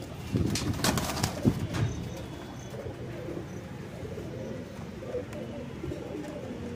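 Domestic pigeons cooing over and over in a loft cage. In the first two seconds a few sharp flutters and knocks come as a bird is released into the wire cage.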